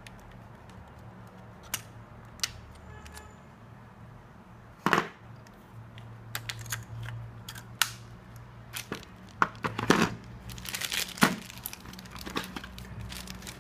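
Scattered clicks and taps from a portable dry-herb vaporizer being handled, with a louder knock about five seconds in. Near the end, plastic packaging crinkles and rustles as the device is set back into its box.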